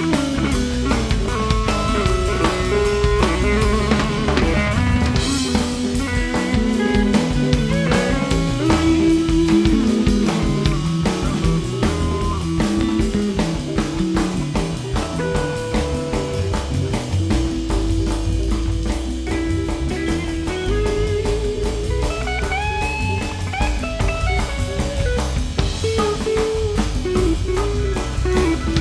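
Background music: a blues-rock tune with electric guitar, bass and a drum kit keeping a steady beat.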